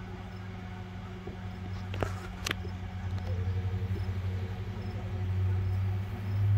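Furrion RV microwave running with a steady low electrical hum that pulses slightly, on a unit that runs but does not heat food. Two light clicks about two seconds in.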